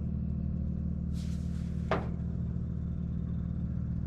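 Fuel pump running with a steady low hum as it fills the rebuilt carburetor's float bowl. A short hiss comes about a second in, and a brief sharp click comes near two seconds.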